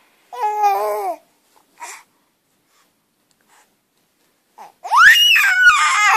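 Infant squealing: a short falling coo about half a second in, then, after a pause, a loud high-pitched squeal that rises sharply and falls away near the end.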